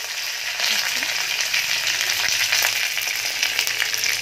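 Green chillies and curry leaves sizzling in hot oil in an aluminium kadai as a tempering, a steady hiss with frequent small crackles and pops.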